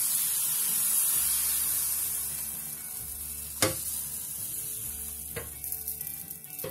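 Thin kefir pancake batter sizzling in a hot frying pan just after it has been spread, the hiss fading over the seconds as it sets. The ladle knocks twice against the glass batter bowl, about three and a half and five and a half seconds in.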